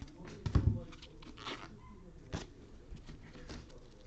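A dull thump about half a second in, followed by a few soft rustles and a sharp click.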